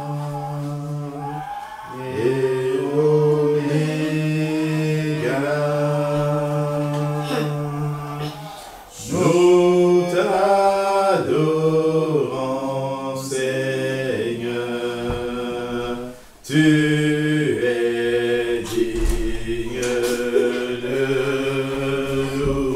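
A small group singing a hymn unaccompanied, in long held notes that glide from one to the next, with short breaks between phrases about two, nine and sixteen seconds in.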